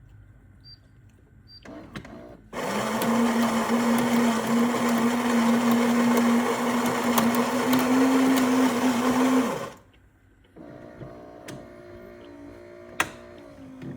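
Philips automatic espresso machine's built-in coffee grinder running for about seven seconds, then stopping. A quieter motor whir follows, with a sharp click near the end.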